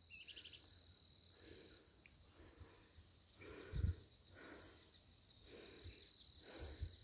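Insects trilling steadily in one unbroken high tone, with faint soft sounds about once a second from a person climbing a slope on foot and one low thump about halfway through.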